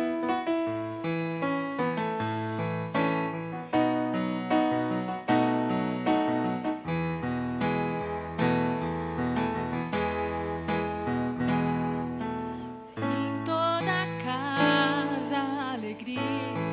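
Electric keyboard playing a tune in chords with a bass line under it; about thirteen seconds in, a held melody with vibrato comes in over it.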